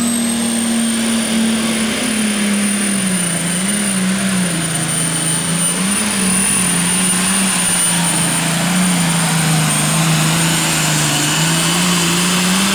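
Turbocharged diesel pulling tractor at full throttle under load down the track, with a high steady turbo whine over the engine. The engine note sags slightly about two to three seconds in as the sled bears down, then holds.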